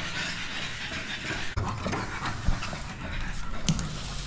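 Two pugs on leashes panting as they are walked along a tiled corridor, with footsteps and a few sharp knocks, the loudest near the end.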